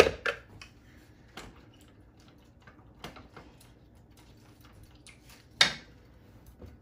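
Wooden spatula stirring chopped tomatoes in a nonstick frying pan: a few sharp knocks against the pan among light scattered ticks. The loudest knock comes near the end, as the spatula is set down in the pan.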